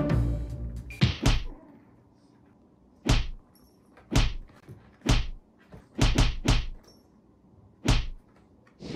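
A run of about ten sharp, separate thunks, each with a short fading ring. They are irregularly spaced about a second apart, with one pair and one quick triple among them.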